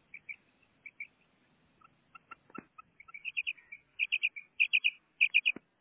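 Female common quail calling: soft, spaced chirps at first, then from about three seconds in, louder quick bursts of three high notes repeated in close succession. A few faint knocks come in between.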